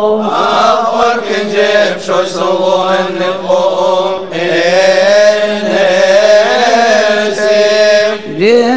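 Male voices chanting a melismatic Coptic liturgical hymn, the melody gliding over a steady low held note.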